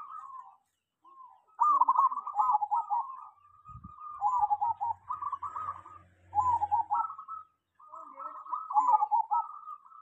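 Zebra dove (perkutut) cooing its song over and over, a run of quick warbling phrases one after another with short gaps, from a bird the keeper calls well practised at singing.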